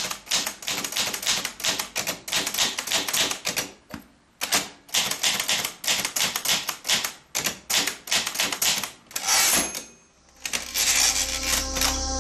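Typewriter keys clacking in quick, irregular strokes, with a short pause about four seconds in. Near ten seconds the typing stops and electronic music with a steady bass begins.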